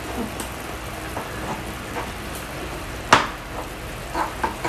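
Fork and knife tapping and scraping on a cutting board while shredding boiled chicken: scattered short clicks, one sharp click about three seconds in and a couple of lighter knocks near the end, over a steady low hum.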